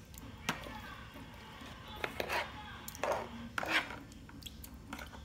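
A spoon clicking and scraping against an orange plastic tray as milkfish (bangus) pieces are turned in their marinade, with a sharp click about half a second in and several short scrapes between about two and four seconds in.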